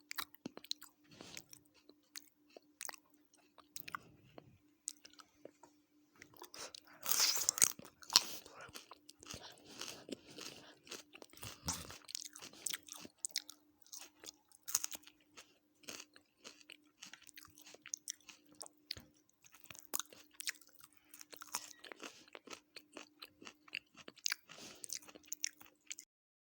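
Close-miked chewing and crunching of food, with wet mouth clicks, from an eating ASMR meal of chicken biryani with salad. It gets louder about seven seconds in, and a steady low hum runs underneath throughout.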